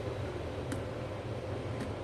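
Steady low hum and hiss with a faint steady tone, broken by two light clicks about a second apart.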